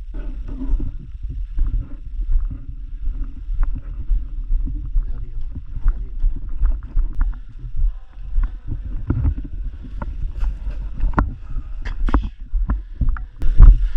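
Low rumble of wind and movement on a body-worn camera's microphone. From about eight seconds in, a run of sharp clicks and snaps comes through it.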